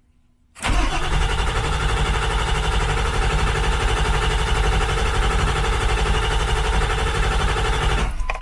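Starter cranking a Ford 7.3 Power Stroke V8 turbo-diesel in a steady, even run of about seven and a half seconds without the engine catching, on its first start attempt after a rebuild with a freshly primed fuel system. The cranking begins suddenly about half a second in and cuts off abruptly near the end.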